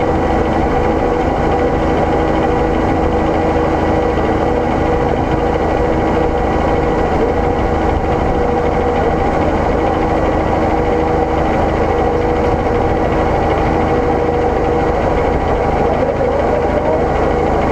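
A vehicle's engine running at a steady pace, a continuous drone with a few held hum tones that do not rise or fall.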